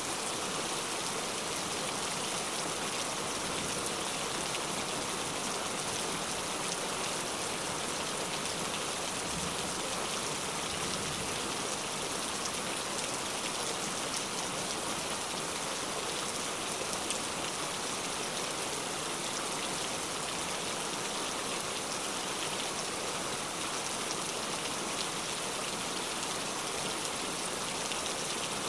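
Steady rain falling: an even hiss made of a dense patter of drops, with no change in strength.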